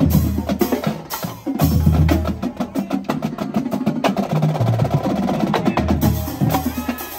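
A marching drumline, mainly snare drums, playing a loud, fast cadence, with a run of rapid rolled strokes a little past the middle and deeper drum hits now and then.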